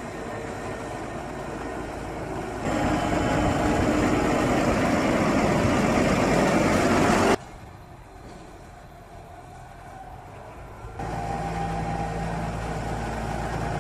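New Holland T7.270 tractor's diesel engine running as it pushes and packs chopped corn silage with a front leveller and roller. The sound cuts abruptly between takes: louder from about 3 to 7 seconds in, much quieter for a few seconds, then louder again.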